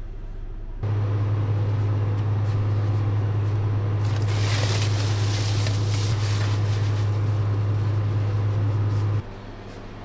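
Steady low hum of a U-Haul box truck's engine idling, heard inside the cab, starting and stopping abruptly about a second in and near the end. Midway, a fabric windshield cover rustles as it is fitted.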